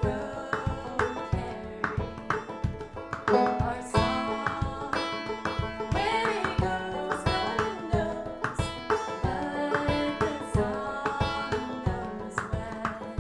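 Folk song played live: banjo picking over a quick, steady beat of hand percussion on a large round drum, with a woman singing the melody.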